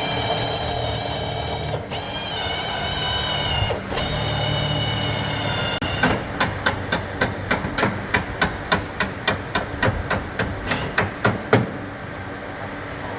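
A steady high-pitched mechanical whine runs for about six seconds, dropping out briefly twice. Then comes a run of evenly spaced hammer blows, about three a second for some five seconds, growing louder toward the end.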